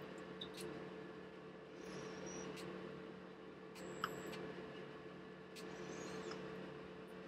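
Faint clinks and scrapes of a spoon in a stainless steel pot as oil is poured and stirred in, with one sharper clink about four seconds in, over a steady low hum.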